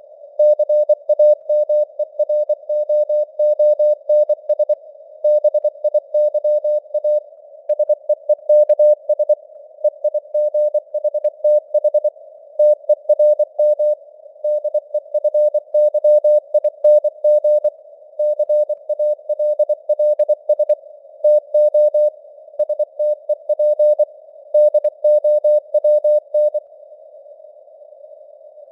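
Morse code (CW) tone keyed at 24 words per minute: a single steady tone switched rapidly on and off in dots and dashes, set in a narrow hiss of simulated radio noise. The keying stops for about two seconds near the end, leaving only the hiss.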